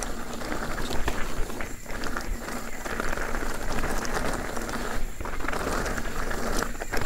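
A steel hardtail mountain bike rolling over loose rock and dry leaves on singletrack: a steady crunching hiss of the tyres, dotted with many small clicks and rattles.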